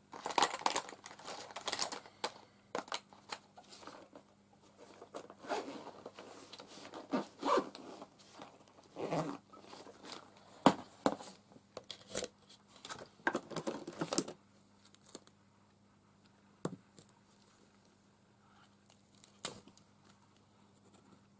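Art supplies being rummaged through and handled: a run of irregular rustling, crinkling and scraping for about fourteen seconds, then only a few scattered clicks.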